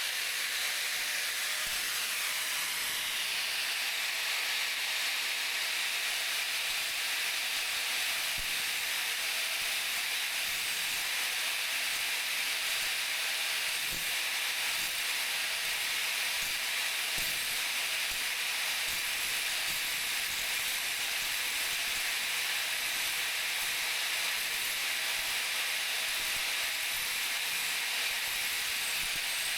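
Grinding wheel running steadily against the edge of a lawn mower blade, a continuous hissing grind as the dull edge is sharpened.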